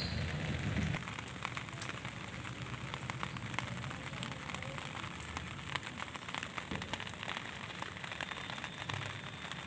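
Rain falling onto plants and surfaces, a steady hiss dotted with many separate drop ticks. A low rumble sits under it for the first second.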